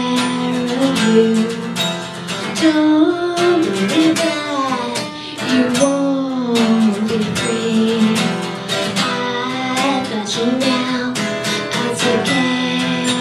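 Live music: a strummed acoustic guitar under long held sung notes that glide up and down in pitch.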